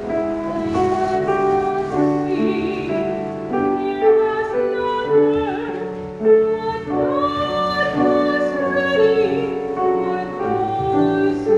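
A song: a woman singing in sustained, vibrato-laden phrases over piano accompaniment.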